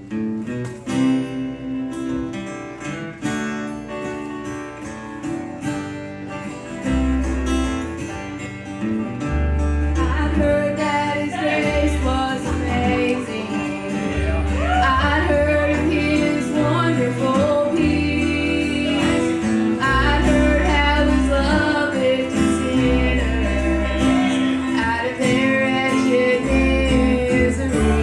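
Live gospel band starting a song: acoustic guitar strumming an intro, deep bass notes coming in about seven seconds in, and voices singing from about ten seconds in.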